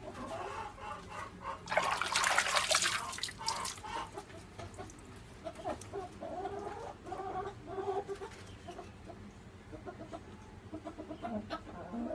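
A burst of water splashing, about two seconds in, as a big catfish thrashes in a metal basin of water. Chickens cluck on and off in the background.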